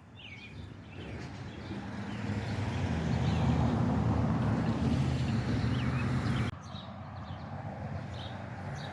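A motor vehicle's engine grows louder over a few seconds, holds, then cuts off abruptly. Birds chirp throughout.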